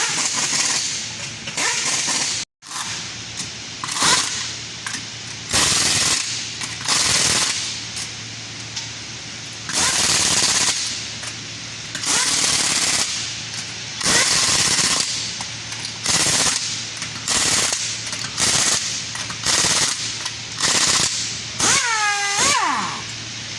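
Pneumatic impact wrench run in about fifteen short rattling bursts a second or two apart, with a falling whine near the end as the tool spins down.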